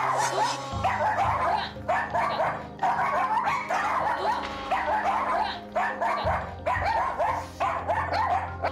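Small pet dogs barking rapidly and without letup in high-pitched yapping runs, several at once, with only brief pauses. This is alarm barking set off by a man standing up among them. Background music plays underneath.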